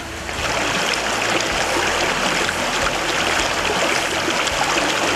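Shallow stream running over rocks: a steady rush of water that comes up a moment in and holds level.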